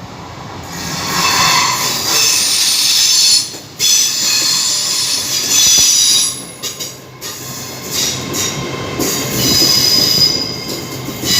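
Class 802 train pulling into the platform, its wheels squealing in high-pitched squeals that come and go over the rumble of the moving train.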